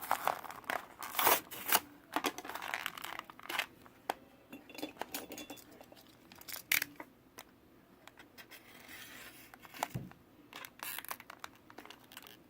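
Plastic packaging of a Hot Wheels collector car being cut and torn open: irregular tearing, crinkling and scratching with sharp clicks, busiest in the first couple of seconds and again near the end, quieter in between.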